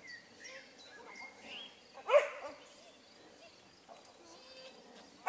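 A dog barks once, loudly and briefly, about two seconds in, and again right at the end, with faint short yips and calls in between.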